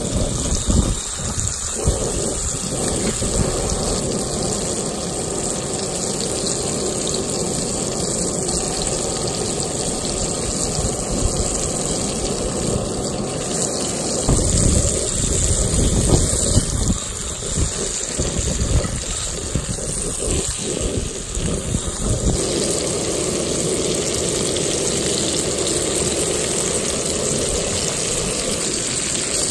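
Breaded burbot fillets sizzling in hot oil in a cast iron skillet, a steady frying hiss. Wind buffets the microphone with an uneven low rumble that comes and goes.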